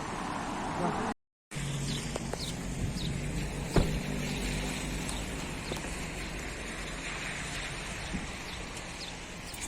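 Steady outdoor background noise with a few faint, short, high chirps and one sharp click partway through; the sound cuts out completely for a moment about a second in.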